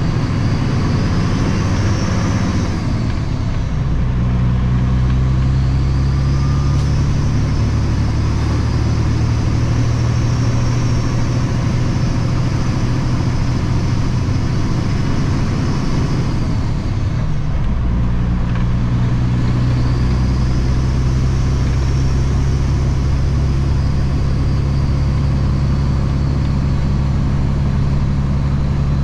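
Kenworth W900 dump truck's diesel engine pulling steadily, heard from inside the cab, with a faint high whistle above the engine note. The engine note breaks and changes about three seconds in and again about seventeen seconds in as the 13-speed manual transmission is shifted.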